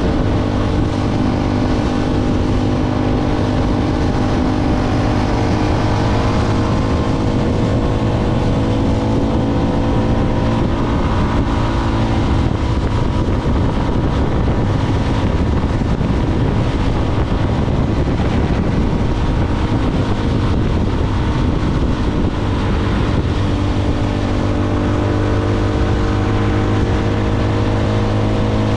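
Motorcycle engine running steadily at cruising speed over a steady low rush of noise. The engine note drifts slowly down, holds, and rises a little again near the end.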